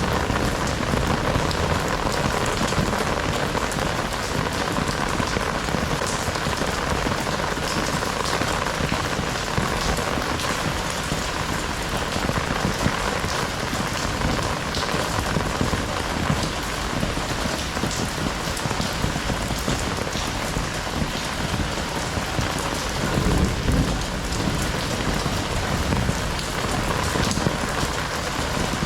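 Heavy rain falling steadily, a dense, even hiss of drops hitting the ground and surfaces. A brief low rumble swells up about three quarters of the way through.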